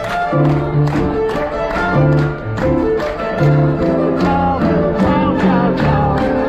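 Violin and piano playing a lively tune, the piano marking a steady beat about two and a half times a second.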